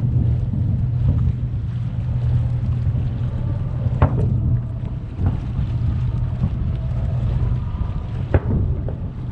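A steady low rumble, with two sharp bangs from distant fireworks about four and eight seconds in.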